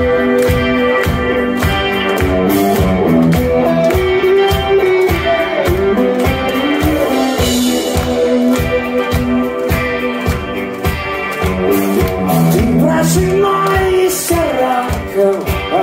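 Live rock band playing through amplifiers: electric guitars over a drum kit keeping a steady beat.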